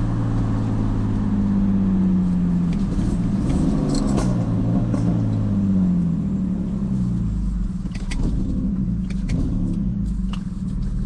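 Turbocharged BMW E46 engine running with a wavering, uneven note as it misfires. A few sharp ticks sound in the second half.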